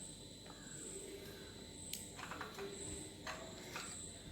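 Faint cricket chirping, a short high chirp repeating about once a second, with a few light clicks of a utensil spreading garlic-butter mix on a bread slice.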